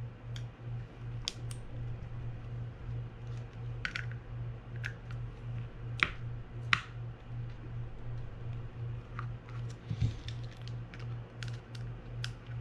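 Scattered small clicks and taps of fishing reel parts and small tools being handled on a workbench, the sharpest two about halfway through, over a steady low hum that pulses a few times a second.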